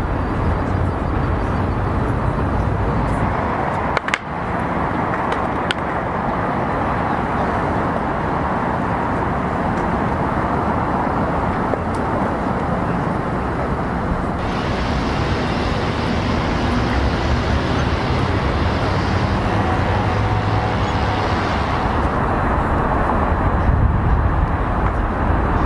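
Steady vehicle rumble, with a sharp click about four seconds in and a hiss that joins at about fifteen seconds and stops at about twenty-two seconds.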